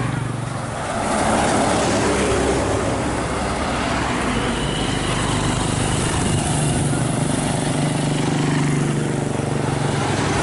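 Road traffic passing by: vehicle engines and tyre noise. A deep engine hum grows stronger in the second half.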